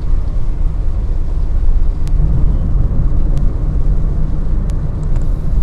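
Wind buffeting the microphone: a loud, low, uneven rumble.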